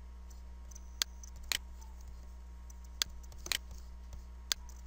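Computer mouse clicking about five times, some clicks in quick pairs, over a steady low electrical hum.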